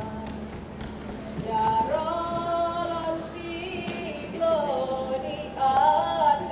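Group of young voices singing a Saman dance song in unison without instruments. The long held notes slide up and down between pitches.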